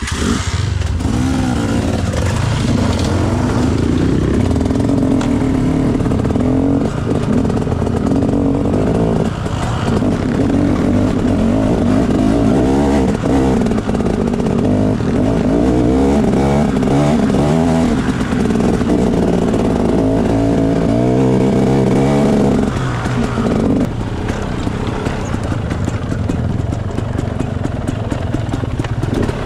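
Motorcycle engine running under load as it is ridden, the revs climbing and falling again and again, with a brief easing off a few seconds before the end.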